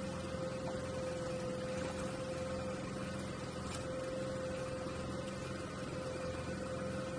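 Steady mechanical hum with a constant mid-pitched tone over it, unchanging throughout.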